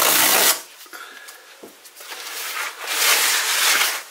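Cardboard book mailer being torn open by its tear strip: a short, loud rip at the start, then cardboard rubbing and scraping that grows louder from about halfway through.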